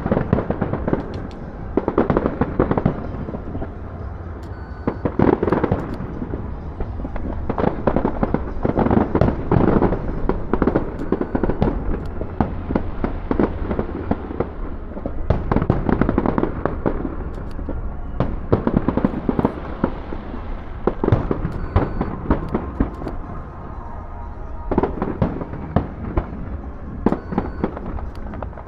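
Aerial fireworks display: dense crackling and popping from bursting shells, with louder clusters of bangs every few seconds and a steady low rumble underneath.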